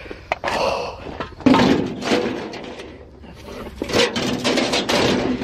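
Scrap metal being shifted and dragged about by hand, in irregular bursts of scraping and clattering. The loudest begins sharply about one and a half seconds in, and another comes around four seconds in.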